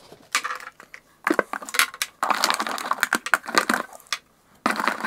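Cosmetic products being taken out of a cardboard parcel box and set down, clinking and clattering against each other in several bursts with short pauses.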